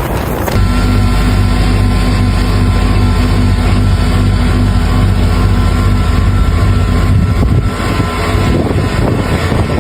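A steady low engine drone over wind noise. It starts suddenly about half a second in and fades out around seven seconds, leaving the wind.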